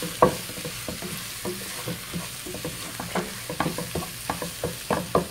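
Wooden spatula stirring and scraping sliced onions and spices around a frying pan, with irregular knocks against the pan over a faint sizzle of frying.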